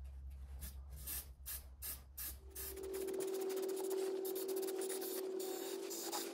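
Aerosol spray can of rust inhibitor: a run of quick rattling clicks, then from about two and a half seconds in a steady spraying hiss with a steady low tone in it, as the rust encapsulator is sprayed onto bare, ground-down fender metal.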